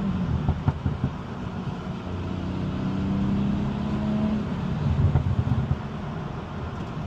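Tuned BMW M240i's turbocharged B58 inline-six running under load, heard from inside the car: a steady engine drone that climbs slightly through the middle. There are rough, crackly bursts near the start and about five seconds in.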